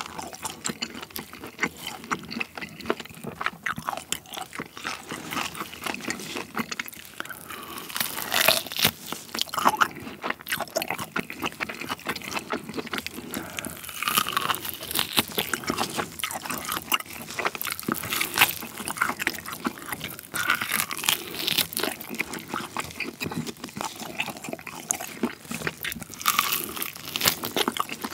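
Close-up eating sounds of a person gnawing and tearing cooked beef off a tomahawk steak's rib bone and chewing it: a dense run of small wet clicks and crackles, with louder bites every few seconds.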